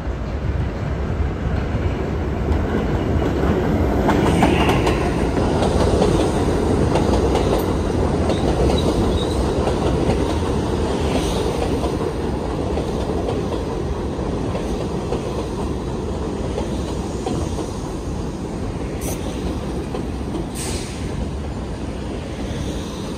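New York City 6 train subway cars running on elevated track and along the station platform: a steady rumble of wheels on rail with clacking over the joints and a few short squeals. It grows louder a few seconds in and then slowly eases off.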